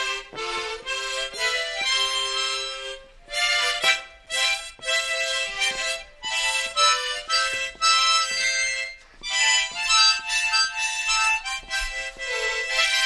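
Several children's harmonicas playing a simple melody together in unison, held notes in short phrases with brief breaks between them. One of the harmonicas is playing out of tune, hard to pick out from the group.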